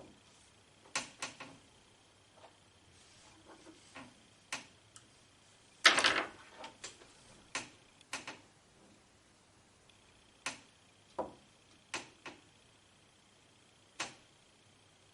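Scattered sharp clicks and taps of small tools against plastic as the battery connector is worked off the circuit board inside an Arlo Essential camera. The loudest cluster of clicks comes about six seconds in.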